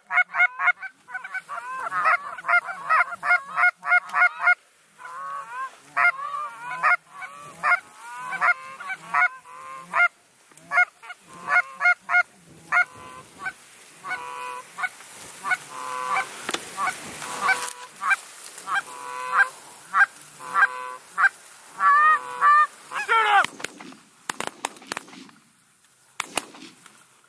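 Goose honking: a rapid, dense run of short honks and clucks, many overlapping, with a brief break about four and a half seconds in, dying away about twenty-four seconds in.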